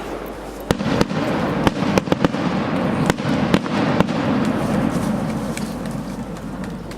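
Aerial fireworks: a rapid volley of sharp bangs over a continuous crackling rumble, the bangs thinning out after about four seconds as the rumble fades.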